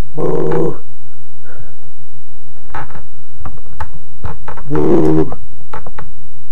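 A man's strained grunts of effort while working a heavy dumbbell: one at the start and another about five seconds in, with scattered knocks and thumps between them over a steady low hum.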